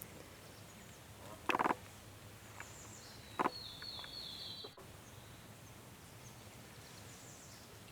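Two short, loud, rasping animal calls about two seconds apart over a quiet wetland background, with a bird singing a wavering high trill just after the second one, which stops abruptly; faint bird chirps near the end.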